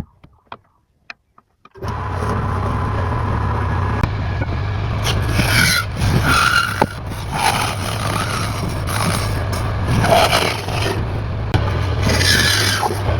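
A woodworking power tool's motor running with a steady hum, starting after about two seconds of near silence, with several louder, rising and falling stretches as it cuts or grinds into wood.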